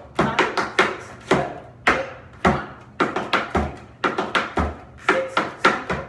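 Metal-tipped tap shoes striking a plywood tap board as a dancer runs through a tap time-step combination: a quick, uneven run of sharp ringing clicks, several a second.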